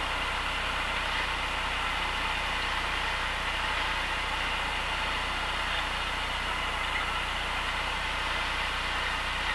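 Cessna 172's piston engine and the rush of air heard from inside the cabin, a steady drone with the engine throttled back for landing.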